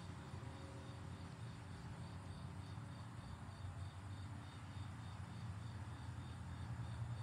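A steady low mechanical hum, with a faint, evenly pulsing high chirping above it.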